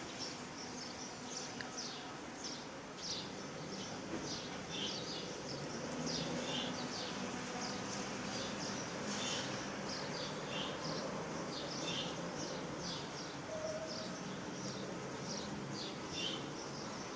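Birds chirping: many short, high calls falling in pitch, several a second and irregular, over a steady low hum.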